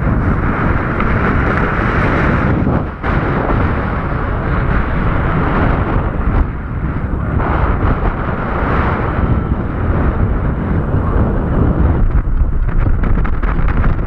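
Strong wind rushing and buffeting over the microphone of a paraglider pilot's camera in flight, a loud steady rush that drops away briefly about three seconds in.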